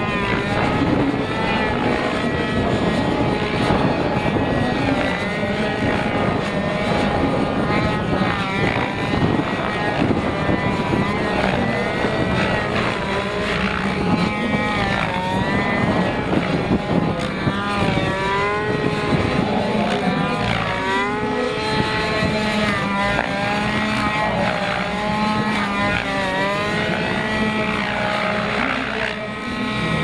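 A Wiplash Gasser RC helicopter flying under power, its petrol engine and roughly 1.7 m rotor running steadily. The pitch swoops up and down again and again as the model manoeuvres and passes by, more often in the second half.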